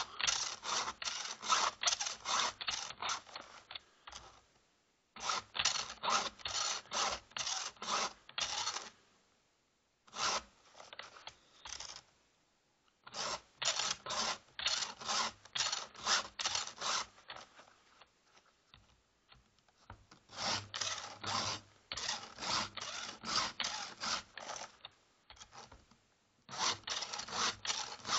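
A Stihl file guide's round and flat files rasping along a chainsaw chain, sharpening the cutters and taking down the rakers together. The strokes come in six quick runs, with short pauses between them as the chain is moved on to the next tooth.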